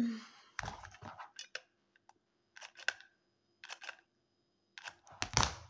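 Cork stoppers and a hot glue gun being handled: short bursts of clicks and rustles about once a second, the loudest with a dull thump near the end.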